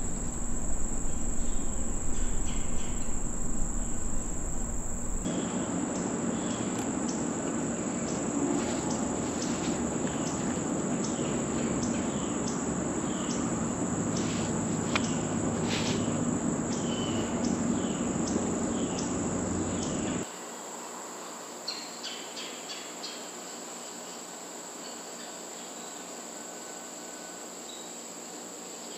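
Steady, high-pitched chorus of crickets and other insects, with scattered short clicks and chirps through the middle stretch. The background noise drops suddenly about twenty seconds in.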